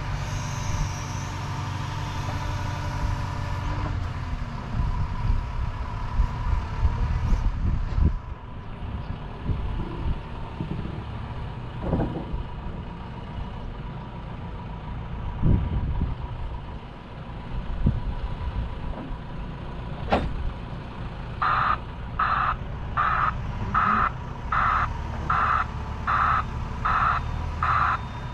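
Lorry diesel engine running, with a few knocks in the middle. Later a reversing alarm starts beeping steadily, about one and a half beeps a second, over the last seven seconds.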